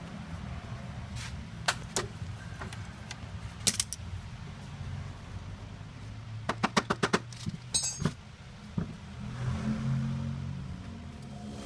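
Car engine idling steadily with a low hum, while scattered sharp metallic clicks, a quick run of about six clicks just past the middle and a brief metallic jangle sound over it.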